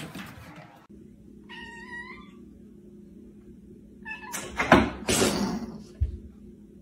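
A domestic cat meows once, a short call. About three seconds later comes a louder, harsher cat cry, followed by a brief low thud near the end.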